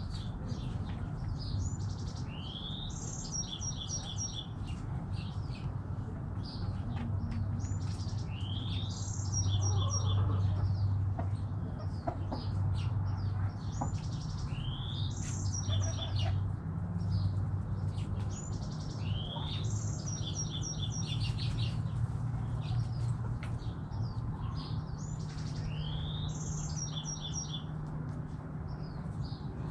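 A songbird repeats the same short song about every five and a half seconds: a rising whistled swoop, then a quick run of high repeated notes. A low steady rumble runs underneath and swells briefly about ten seconds in.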